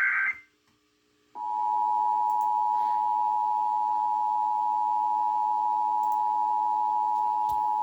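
The end of an Emergency Alert System SAME digital header burst, a second of silence, then the EAS attention signal starting about a second and a half in: a steady two-tone alarm that announces an incoming emergency alert.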